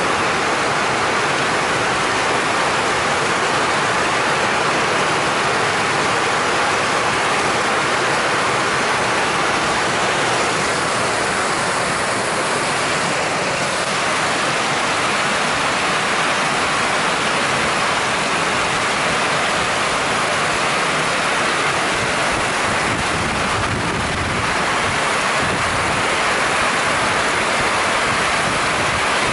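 Heavy downpour: a loud, steady hiss of rain pouring onto waterlogged ground.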